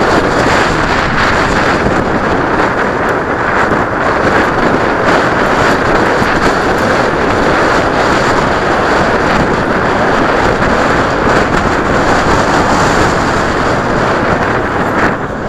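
Wind rushing over the microphone of a camera on a moving bicycle, a loud, steady roar, mixed with the sound of passing car traffic.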